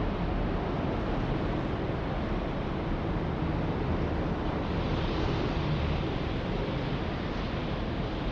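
Steady city street noise: a low, continuous rumble of traffic with no single vehicle or event standing out, a little brighter in the second half.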